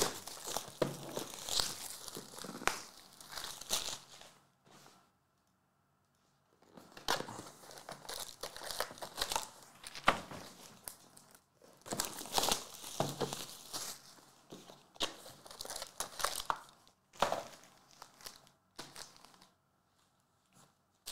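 Plastic and foil packaging of a Panini Limited football card box and its packs crinkling and tearing as it is opened by hand. The crackling comes in bursts separated by brief pauses.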